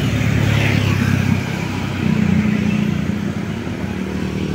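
Road vehicle engine running with a low drone. The drone drops off about a second and a half in and picks up again half a second later at a slightly higher pitch, then eases.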